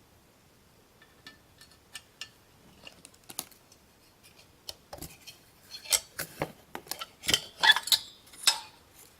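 Scattered metallic clicks and clinks from an old Edwards Adaptahorn alarm horn's metal housing being handled. They are light at first and get louder and more frequent in the last three seconds, some with a brief ring.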